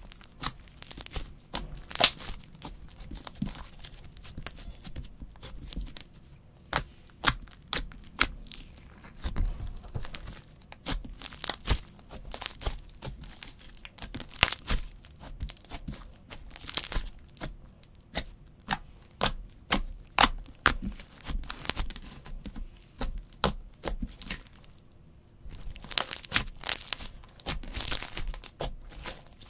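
Hands kneading, pressing and stretching sticky glitter slime, giving an irregular string of sharp crackles and pops, with a short quieter lull a few seconds before the end.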